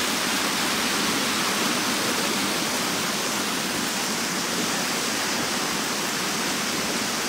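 Shallow, fast-flowing river water rushing steadily over stones.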